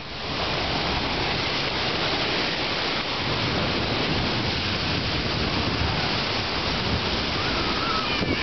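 Small waves breaking and washing up a sandy beach: a steady hiss of surf and foam.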